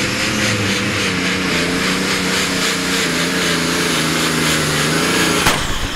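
Twin-turbo John Deere 8.1-litre six-cylinder diesel in a pulling tractor running hard under the load of a weight-transfer sled, a loud steady engine note with a high hiss above it. A single sharp crack about five and a half seconds in, after which the engine note falls away.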